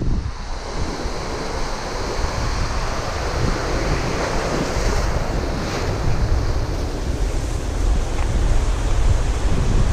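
Ocean surf washing over a shallow rock ledge, with a wave surging in and foaming across about four seconds in. Wind rumbles on the microphone underneath.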